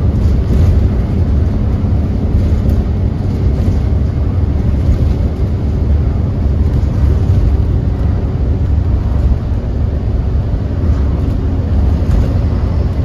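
Alexander Dennis Enviro400MMC double-decker bus under way, heard from inside the passenger saloon: a steady, loud low engine and road rumble.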